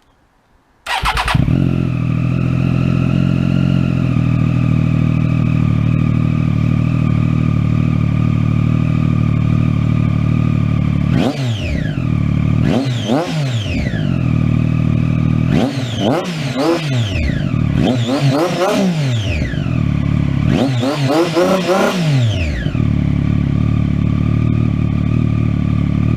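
A sport motorcycle with an aftermarket exhaust is started and settles into a steady idle. From about eleven seconds in it is revved several times, each rev rising and dropping back to idle. The sound cuts off suddenly at the end.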